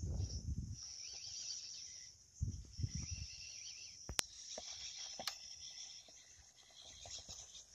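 Insects chirring steadily in a high, continuous band, with low rumbles at the start and again about two and a half seconds in, and two sharp clicks about four and five seconds in.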